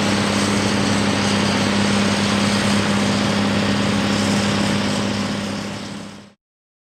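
Cat 637 twin-engine scraper's diesel engines running steadily under load as it loads in the cut, a deep drone that fades out and stops about six seconds in.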